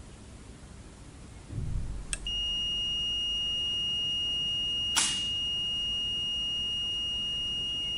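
Multimeter continuity beeper sounding one steady high tone across the fan's relay COM and NC contacts, starting about two seconds in just after a click: the contacts are closed, which signals a normal power supply. A low thump comes just before the tone, and a sharp click about five seconds in.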